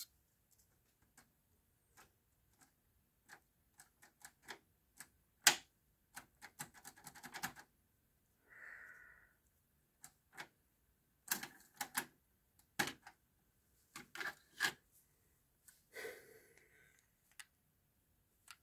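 Irregular mechanical clicks and clunks from a Pyle PT-659DU dual cassette deck as its transport buttons are pressed and a cassette is handled in its tape well. There are short whirs about halfway through and again near the end.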